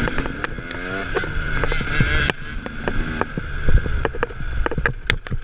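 KTM 300 two-stroke dirt bike engine revving up and down over rough trail, easing off near the middle and picking up again. Many sharp knocks and rattles come through over the bumps.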